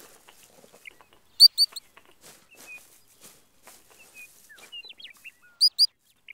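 Uinta ground squirrels giving short, high alarm chirps in two quick bursts of about four, one about a second in and one near the end, the warning call raised at a hunting badger. Fainter, scattered chirps and small ticks come in between.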